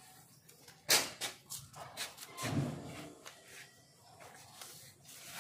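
A sheet of notebook paper rustling and crackling as it is folded and creased flat by hand on a concrete floor. The sharpest crackle comes about a second in, with a few more after it, and a brief low muffled sound comes a little past halfway.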